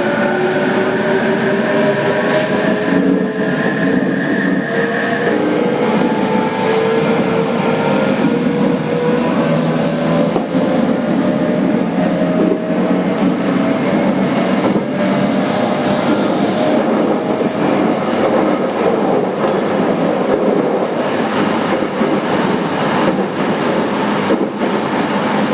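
Inverter and traction-motor whine of a JR Kyushu 817 series 3000 subseries electric train, heard from inside a motor car over wheel and rail noise. Several tones rise slowly and steadily in pitch as the train accelerates.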